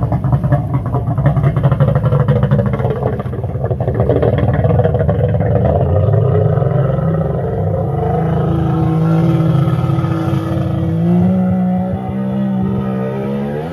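Personal watercraft (jet ski) engine running hard as it pulls away through the water; its pitch rises near the end as it revs up.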